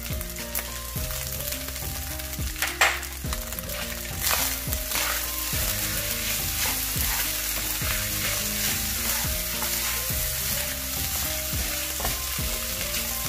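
Fried rice sizzling in a hot nonstick wok while a wooden spatula stirs and scrapes it, in repeated strokes about twice a second over a steady sizzle.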